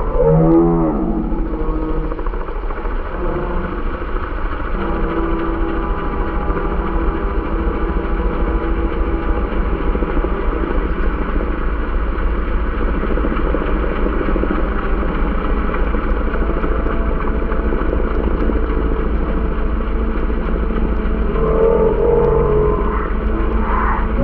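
Engine noise that drops sharply in pitch as it passes, about half a second in, then settles into a steady drone.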